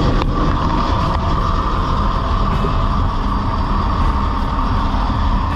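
Old boat's inboard engine idling steadily, running on half a carburetor after sitting unused for years.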